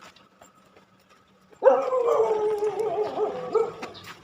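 A dog gives one long, drawn-out howling whine that starts about a second and a half in and sinks slightly in pitch.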